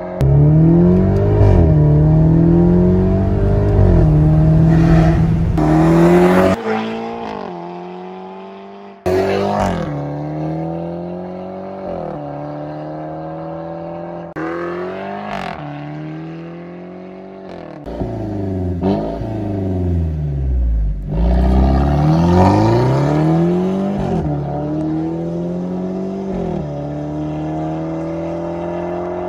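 Mercedes-Benz C300 (W205) with its 2.0-litre turbocharged four-cylinder breathing through an aftermarket RES valved exhaust, accelerating hard in repeated pulls, the pitch rising through each gear and falling between. It cuts out abruptly about six and a half seconds in and comes back loud about nine seconds in.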